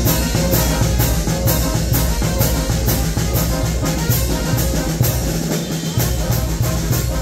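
Mexican banda de viento brass band playing live, with tuba, trumpets and bass drum. A steady beat of about two drum and cymbal strokes a second runs over a strong tuba bass line.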